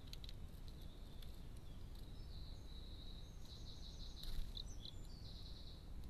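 A songbird singing in the background: a run of high notes with quick trills from about two seconds in. A few sharp clicks near the start and one louder tap about four seconds in.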